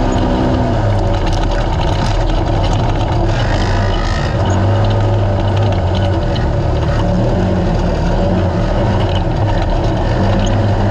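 Naturally aspirated race UTV engine running loud and steady under way, its pitch shifting a little, with a higher tone dropping out about a second in.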